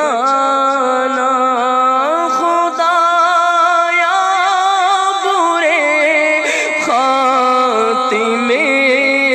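Background vocal music: a single voice singing a slow, ornamented chant with long held notes.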